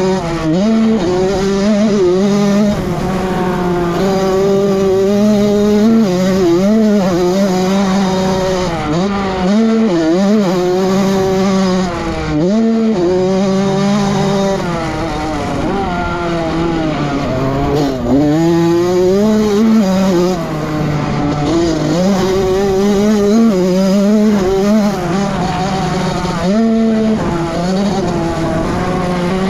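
Honda CR85 two-stroke motocross bike engine at race pace, its pitch climbing and dropping back again and again as the throttle is opened and shut.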